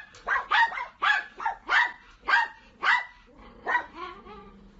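A dog barking repeatedly in short, sharp barks, about two a second, stopping shortly before the end.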